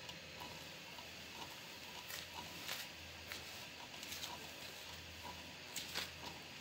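CNC router's spiral end mill cutting a slot in veneered chipboard: a faint steady hum with scattered small crackles and scratches as the bit chews through the board, and a few louder cracks.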